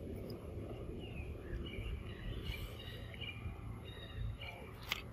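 Forest ambience: several short, high chirps from birds or insects over a steady low rumble, with one sharp click near the end.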